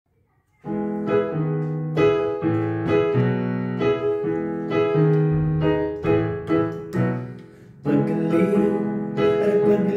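Digital keyboard played with a piano sound: an intro of sustained chords struck about once a second, starting about half a second in, with a short lull shortly before the end.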